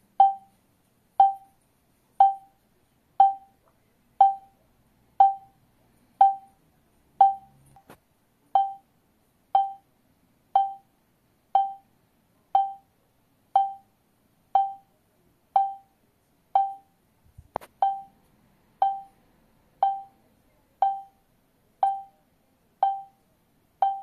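STANIOT home alarm control panel beeping about once a second during its exit-delay countdown before the system arms. Each beep is a short single tone that fades quickly.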